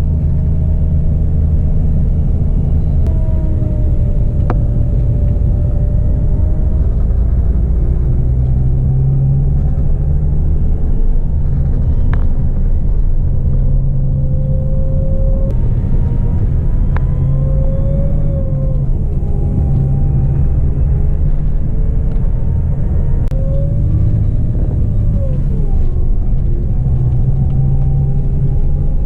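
Sightseeing cruise boat's engine running steadily, a loud low drone with faint tones that slide up and down above it.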